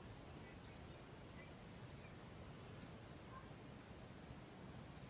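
Faint, steady chorus of insects, an unbroken high-pitched hum, with a few short chirps heard faintly over it.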